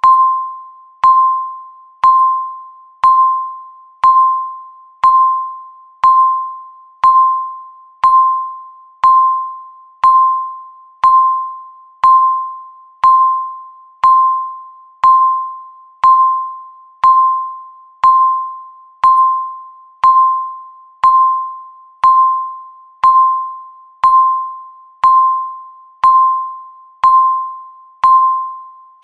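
Countdown timer beep: a single electronic tone sounding once every second, each one starting sharply and fading away before the next.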